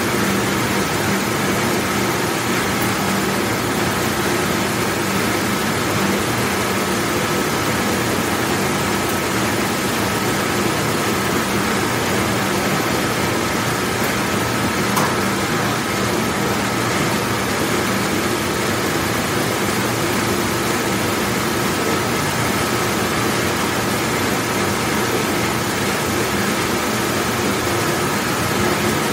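Large commercial dishwashing machine running: a steady, unbroken machine noise with a low hum and a thin steady whine over it.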